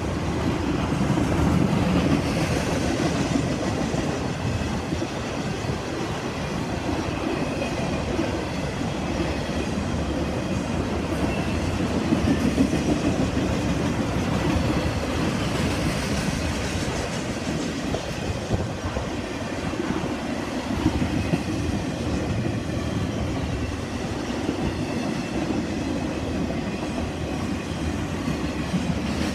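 Intermodal freight train's container well cars and trailer-carrying spine cars rolling past: a steady rumble of steel wheels on the rails with clickety-clack over the joints and faint high wheel squeals now and then.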